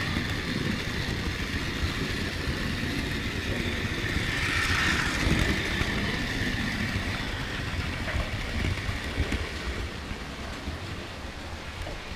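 Model railway locomotive running, picked up by a camera riding on the train: a steady electric-motor whine over the rumble of small wheels on the track. It swells about halfway through and eases off near the end as the train comes to a stop.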